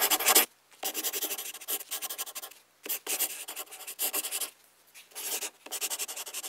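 Scratchy pen-on-paper drawing sound: quick sketching strokes in about five bursts with short pauses between them, the sound of the cartoon being drawn line by line.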